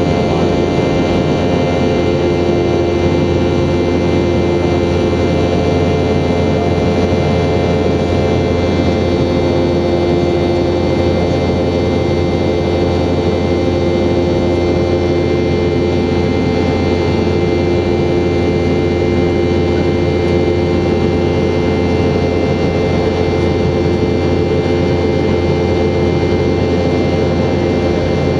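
Boeing 717-200's Rolls-Royce BR715 turbofan engines running steadily, a constant jet rumble with several steady hum and whine tones over it and no change in power.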